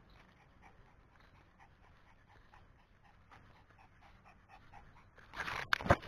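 A Pomeranian panting quickly and steadily, about three pants a second. Near the end comes a louder burst of rustling with a sharp knock.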